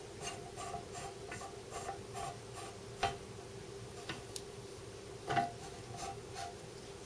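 Ball screw turned by hand into a packed ball nut, the balls ticking about three times a second as they roll onto the screw thread, then a few slower scattered ticks with one louder knock near the end. A faint steady hum sits under it.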